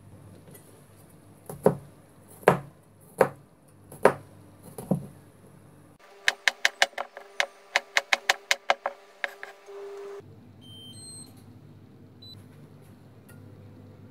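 Five heavy knocks about a second apart, then a kitchen knife chopping garlic on a plastic cutting board in a quick run of about fifteen strokes, about five a second. Near the end a few short electronic beeps.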